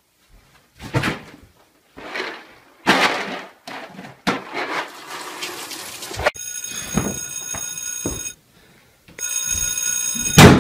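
A few short scuffs and thumps, then an alarm clock ringing with a steady electronic tone that stops briefly and starts again. It is cut off near the end by a loud bang as the clock is struck with a hammer.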